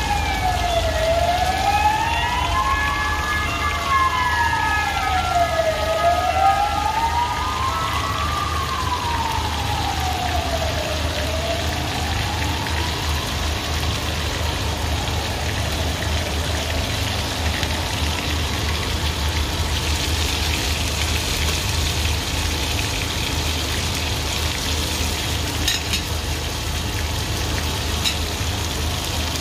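Steady sizzling of food frying in a hot pan. For the first half a siren wails over it in slow up-and-down sweeps about every five seconds, then fades away.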